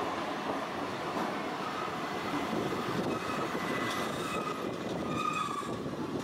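Tosaden 600-series tram running on street track as it approaches and passes close by, a steady rumble of wheels and running gear, with faint high squealing tones in the second half.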